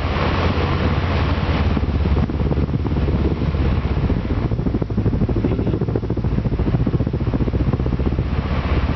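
Vintage Emerson Electric three-speed desk fan (type 77648-SO) running: a steady low electric-motor hum under the rush of air from the blades.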